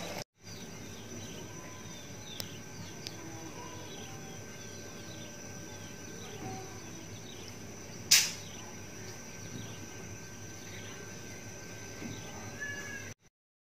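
Faint ambience of small birds chirping in many short falling notes over a steady high whine, with a sharp click about eight seconds in.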